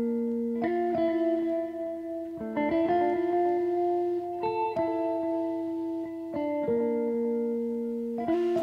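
Background music: slow, sustained notes and chords, changing about every second or two.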